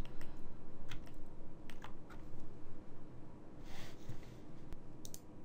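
Computer keyboard and mouse clicks: a handful of sharp single clicks at irregular intervals.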